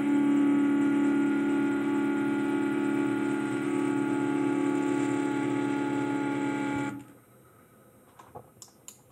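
Stepper motors of a 3D-printed robot arm, run by DRV8825 stepper drivers, whining steadily at a constant pitch as the joints move, then cutting off abruptly about seven seconds in. A few faint clicks follow near the end.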